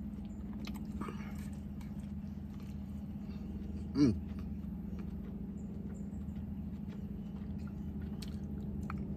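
A man chewing a mouthful of food, with faint scattered clicks, over a steady low hum. About four seconds in he gives a short 'mm' that falls in pitch.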